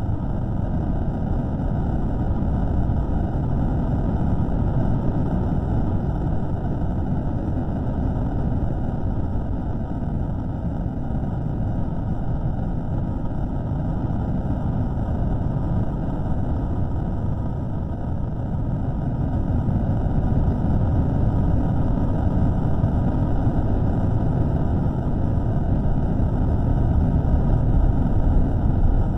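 Steady low rumbling noise with no distinct events, from a microphone recording slowed down to several times its length.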